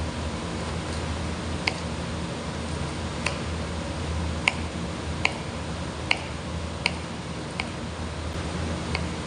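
Kitchen knife chopping green chillies on a plastic cutting board: about eight sharp taps, roughly one a second, over a steady low hum.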